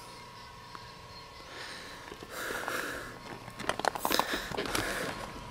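Handling noise close to the microphone as an action camera is set up on a bicycle: soft rustling, then a quick flurry of clicks and knocks about two thirds of the way through.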